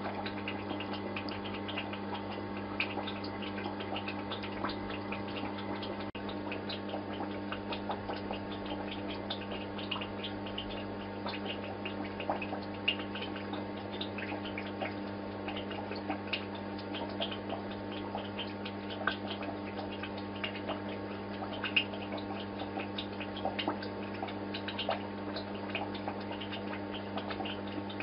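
Aquarium running: a steady low electrical hum from the tank's equipment under a constant patter of small water ticks and bubbling.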